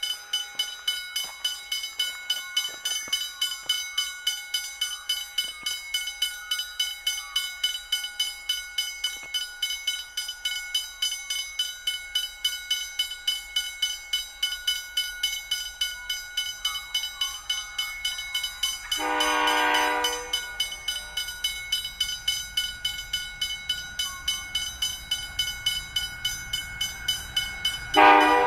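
Level crossing bell ringing in a rapid, even rhythm while the crossing lights flash. An approaching diesel freight locomotive sounds its horn in one blast of about a second about two-thirds of the way through, then starts another near the end.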